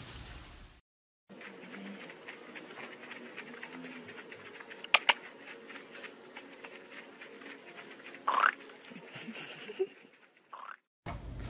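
Two husky puppies: many small clicks and taps, one sharp click about halfway, and a short rising whine about three-quarters of the way in. The sound cuts out briefly about a second in and again near the end.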